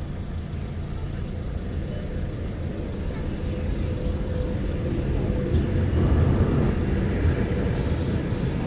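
Electric freight train approaching and reaching a level crossing: a steady low rumble that grows louder.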